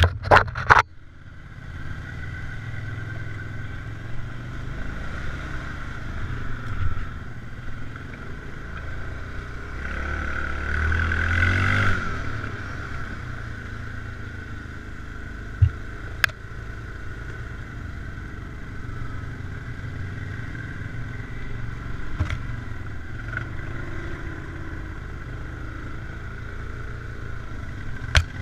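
Yamaha Wolverine 350 ATV engine running as it rides over a bumpy trail. The revs climb and the sound grows louder about ten seconds in, then settle back. Sharp knocks and clatter from the rough ground come at the start and a few times later.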